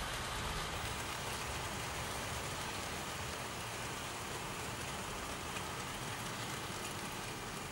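OO gauge model freight train of coal wagons rolling past on model railway track: a steady rattle of small wheels on the rails.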